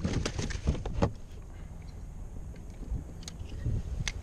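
A quick run of knocks and thumps on a plastic kayak as a netted fluke is brought aboard and handled, lasting about the first second. Then a low, even noise of wind and water, with a couple of single clicks near the end.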